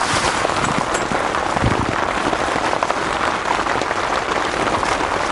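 Steady rain falling on a tent, heard from inside: a dense, even hiss of many small drop hits.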